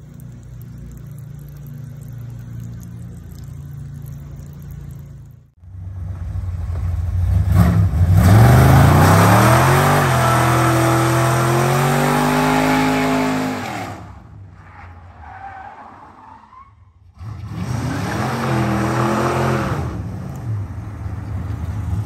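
An engine runs steadily at low revs. Then a C3 Chevrolet Corvette's V8 revs hard in a burnout, its pitch climbing and then holding high while the rear tyres spin. After a short lull, a second muscle car's V8 revs up in another burnout near the end.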